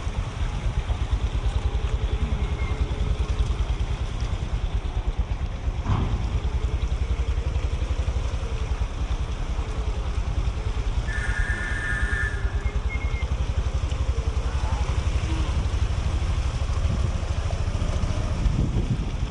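Road traffic with a steady low engine and road rumble. Midway a vehicle horn sounds once for about a second and a half, and a single sharp knock comes a little earlier.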